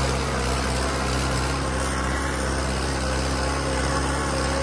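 Modified New Holland 5630 tractor's diesel engine running steadily under load during a power test.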